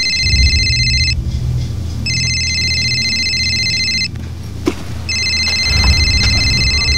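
Mobile phone ringing: an electronic trilling ringtone in bursts of about two seconds, heard three times with short gaps, over low background music.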